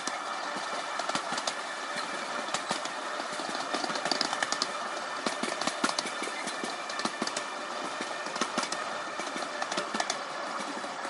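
Miniature railway train running along the track: steel wheels clicking and rattling over the rails and joints in an uneven patter, over a steady hum.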